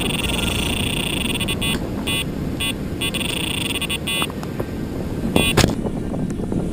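Rapid high-pitched electronic beeping in short and second-long bursts over a steady low rush, with a single knock about five and a half seconds in, after which the beeping stops.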